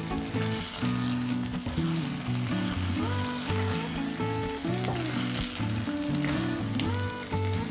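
Risotto sizzling in a frying pan as it is stirred and turned with a spoon. Background music with a stepping melody plays throughout and is as loud as the sizzle.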